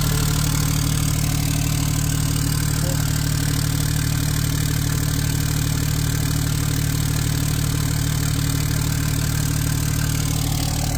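Cummins diesel engine idling steadily and loudly, with an even low hum that does not change.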